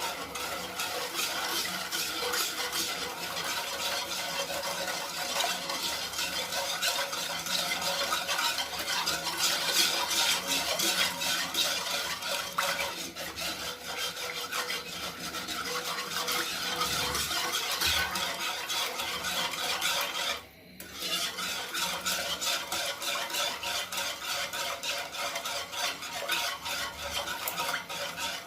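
A spoon stirring and scraping in a pot of sugar and water, dissolving the sugar into syrup over the heat, in quick continuous strokes with a short break about two-thirds of the way through.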